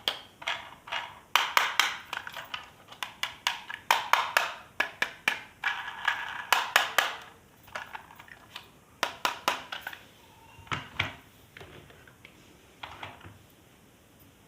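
Hard plastic toy packaging and toy parts being handled and unpacked: a busy run of sharp clicks and taps with some crinkly rustling, thinning to a few scattered taps after about ten seconds.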